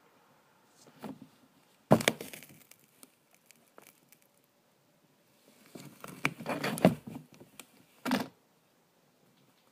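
A plastic toy car cracking and crunching under a high-heeled shoe, with knocks of the shoe on the floor. There is a sharp crack about two seconds in, a longer run of crunching from about six to seven seconds, and a short crack just after eight seconds.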